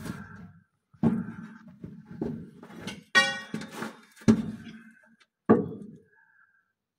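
A steel crowbar struck against metal four or five times, heavy knocks with a short metallic ring, the clearest ring a little after three seconds in. The blows knock the truck's gearbox backwards so that its input shaft lines up with the new clutch.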